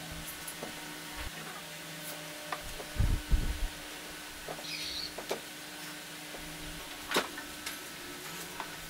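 Wooden boards knocked and set down on a wooden workbench as they are positioned by hand: a cluster of low knocks about three seconds in, then a few lighter taps and clicks, over a steady low hum.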